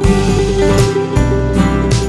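Background music led by acoustic guitar, with a steady bass and beat.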